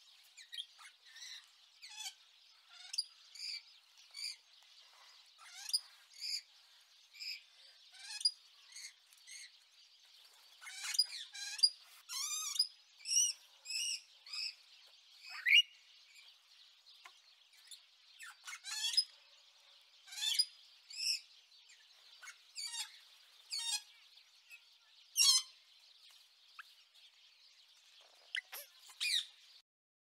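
Parrots and other exotic birds calling: many short, sharp chirps and squawks of varying pitch, some in quick clusters, over a steady high hiss. The calls stop just before the end.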